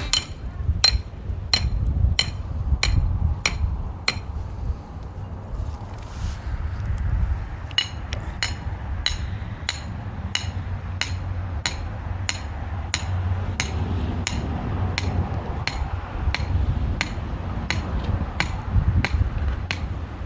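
Repeated hammer strikes, sharp and evenly spaced, about one every two-thirds of a second. They stop for a few seconds, then resume a little faster, about two a second, over wind rumbling on the microphone.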